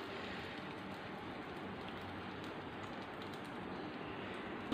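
Egg-coated beef shami kebab frying in shallow oil, the oil sizzling steadily with faint crackles.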